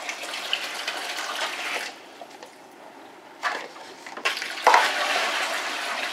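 Hot water pouring from a bucket into an empty plastic storage tub, a rushing splash. The pour stops about two seconds in, then starts again and becomes a louder gush about four and a half seconds in.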